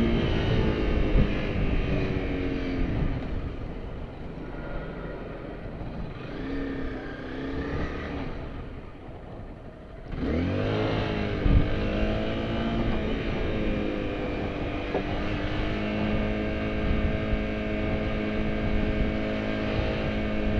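A Honda CBR250R's single-cylinder engine under way in slow traffic. Its note falls at first and fades to a low, noisy lull, then rises sharply about halfway through as the throttle opens. The pitch wavers for a few seconds, then settles into a steady drone for the last several seconds.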